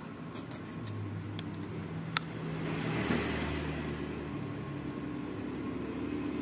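Low steady mechanical hum that swells about three seconds in, with a single sharp click about two seconds in.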